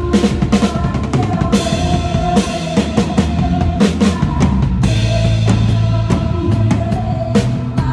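Drum kit played with a live band: kick and snare strokes and frequent cymbal hits over sustained instrumental music.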